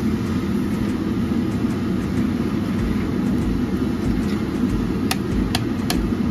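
A steady low rumble from a boondi frying station: a large iron kadhai of hot oil over its stove fire. Near the end, a metal slotted skimmer clinks sharply against the pan three times.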